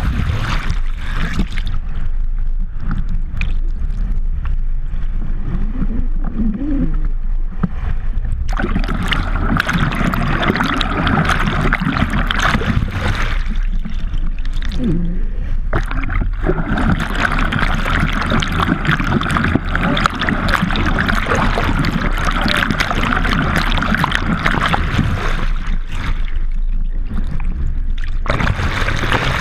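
Water rushing and splashing past a GoPro mounted on a towed subwing as it glides underwater and near the surface, over a steady low hum. The rushing hiss drops away several times and swells again.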